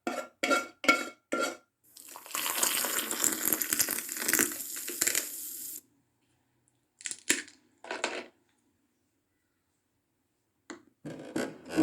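Dishes and cutlery clinking in a regular rhythm, about three strikes a second, for the first second and a half. Then comes a few seconds of steady rushing hiss, two short scraping sounds, a pause, and a few knocks near the end.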